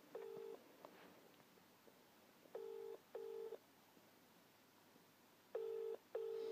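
British-style double ringback tone from a mobile phone on loudspeaker while an outgoing call rings unanswered: pairs of short steady rings, one pair about every three seconds.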